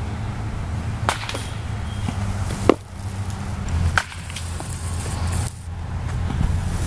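Pitched baseballs smacking into a catcher's leather mitt: several sharp pops, the loudest a little over a third of the way in, over a low steady rumble.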